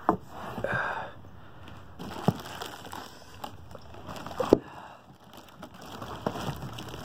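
Plastic wrap and cardboard packaging crinkling and rustling as it is handled, with a few sharp knocks, the loudest about four and a half seconds in.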